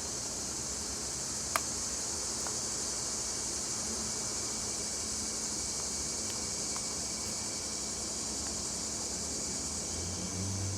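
Steady, high-pitched chorus of insects, with a single sharp click about a second and a half in and a low rumble coming up near the end.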